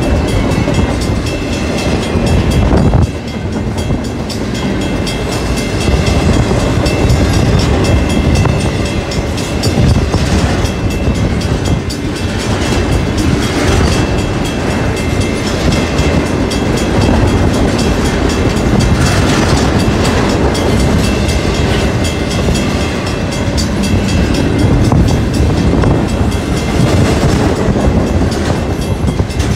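Double-stack container cars of a Union Pacific intermodal freight train rolling past close by at speed: a loud, steady rumble and clatter of steel wheels on the rails.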